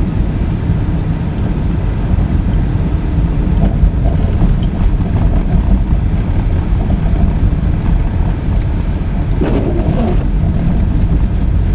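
Steady low rumble of a car driving on snowy roads, heard from inside the cabin.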